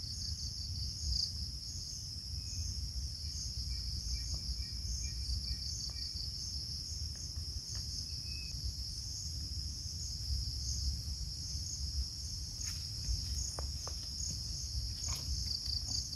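A steady, high-pitched chorus of insects such as crickets or cicadas, pulsing slightly, over a low rumble, with a few faint bird chirps.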